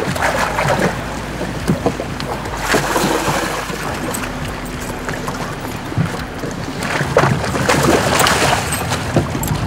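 A hooked musky, about 30 inches, thrashing and splashing at the water's surface beside the boat, with heavier splashing near the end as it is scooped into a landing net.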